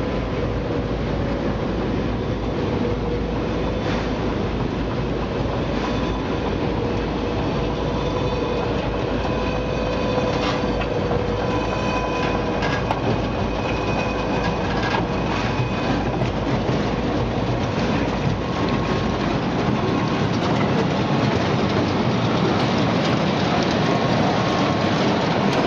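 Potato processing line machinery running: electric gear motors and conveyors give a steady mechanical rattle and hum, with scattered knocks as potatoes tumble through the stainless steel machines.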